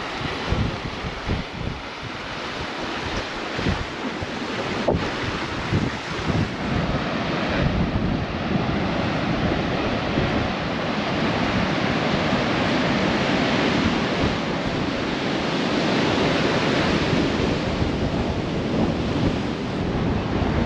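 Surf washing steadily, with wind buffeting the microphone in gusts during the first several seconds.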